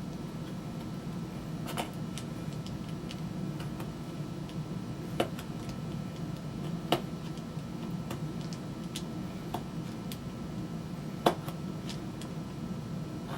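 Scattered sharp clicks and taps from a knife cutting leather on a work surface, about seven over the stretch, the loudest about 11 seconds in, over a steady low hum.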